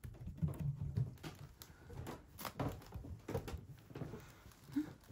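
Footsteps, knocks and clothing rustle as a person steps up onto a raised floor and walks across tatami, with the phone jostled in hand; a steady run of irregular thumps and scuffs, heaviest in the first second or so.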